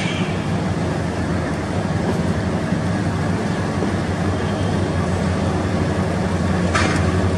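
ABB Henschel class 2700 (JT18U6) diesel locomotive running with a steady low engine drone as it approaches, growing a little louder near the end. A brief hiss comes about seven seconds in.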